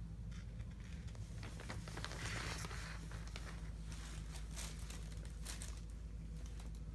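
Paper rustling and crinkling under a long-haired cat squirming on its back, with scattered light crackles and a busier patch of rustling about two to three seconds in.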